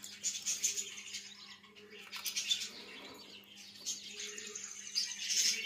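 Caged birds chirping and twittering in many short, high-pitched bits, with no clear song.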